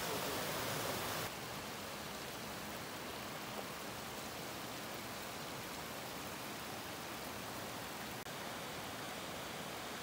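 Steady rush of a small waterfall and a shallow stream running over rocks. About a second in the sound steps down a little in level and turns duller, then holds steady.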